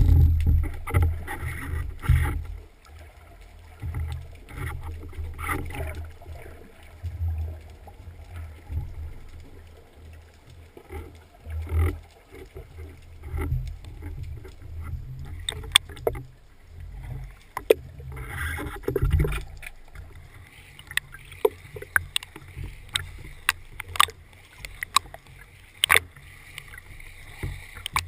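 Small boat on the water: a low, uneven rumble of water and wind around the hull, with scattered sharp clicks and knocks that come thicker in the last third.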